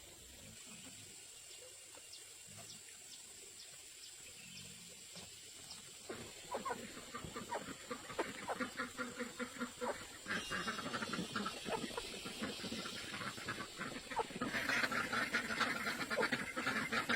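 A flock of domestic ducks quacking: faint at first, the calls set in about six seconds in, come thick and fast, and grow louder into a dense chorus near the end.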